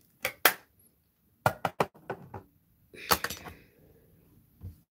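A run of sharp clicks and knocks as makeup items, a brush and a plastic eyeshadow palette, are handled and set down, with a short rustle about three seconds in.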